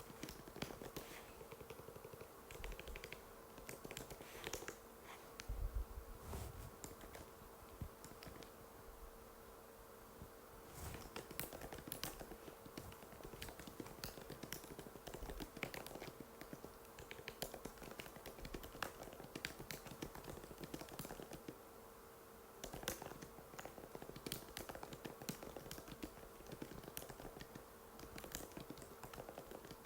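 Typing on an Apple MacBook butterfly keyboard: light, quick key clicks in irregular runs with brief pauses, over a faint steady hum.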